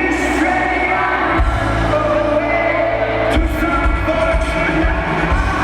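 Amplified live rock band playing with a singer's held notes. Heavy bass and drums come in about a second and a half in, and again past the middle.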